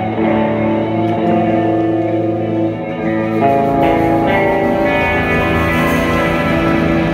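Live band playing an instrumental passage with sustained guitar chords, the chord changing about three and a half seconds in.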